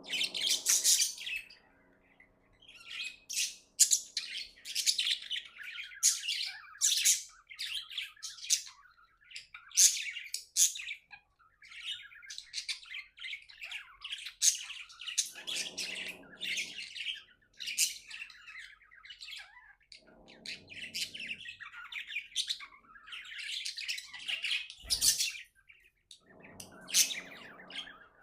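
Pet budgerigars chirping in rapid, continuous chatter, with a few squawks and a single sharp knock near the end.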